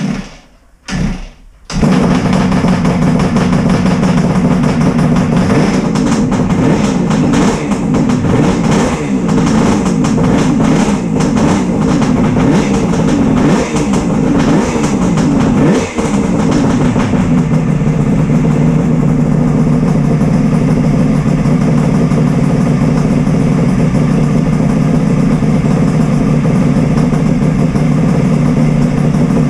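Kawasaki Mach III air-cooled three-cylinder two-stroke engine on its first start after a rebuild: it fires, stumbles once and catches about two seconds in. It is then blipped up and down on the throttle for several seconds before settling to a steady idle a little past the middle.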